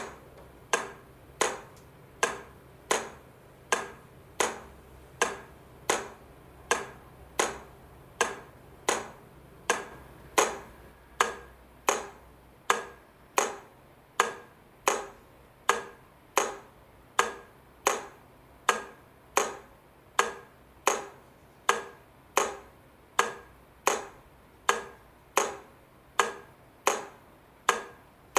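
Level-crossing warning equipment sounding a steady, evenly timed series of sharp metallic strikes, about three every two seconds, each ringing briefly. This is the alternating rhythm of a crossing in warning mode.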